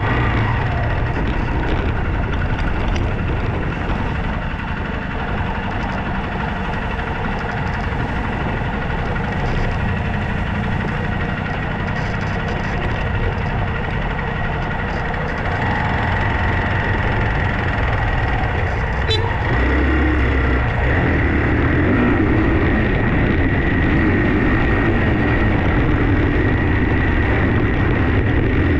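A vehicle engine running steadily for the whole stretch, with a thin steady whine above it. There is a sharp click about two-thirds of the way through, and just after it the engine sound grows louder and heavier.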